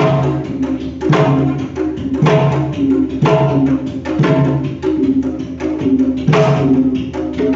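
Sundanese tarompet, a double-reed shawm, playing a melody over kendang hand-drum rhythm, with a strong drum stroke about once a second.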